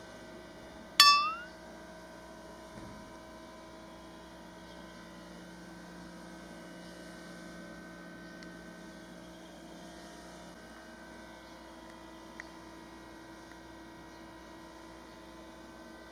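A steady hum of several held tones, broken about a second in by one sharp clang that rings briefly, with a faint click later on.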